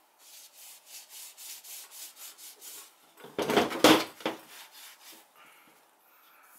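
Microfiber cloth wiping a shotgun's metal receiver in quick back-and-forth strokes, about four or five a second, with a louder, heavier stretch of rubbing and handling about three and a half seconds in.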